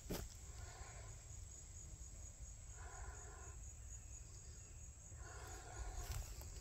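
Quiet summer woods: a faint pitched call repeats three times, about two seconds apart, over a steady high insect trill.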